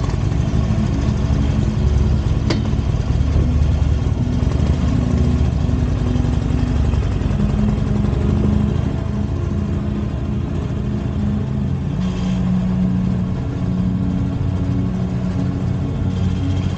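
Harley-Davidson Iron 883's air-cooled V-twin engine running steadily, its pitch shifting a couple of times.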